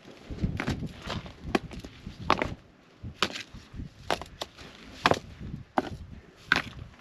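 Rocks knocking and clacking against each other as they are lifted and set in place on a stacked-stone fire ring, about ten sharp, irregular knocks.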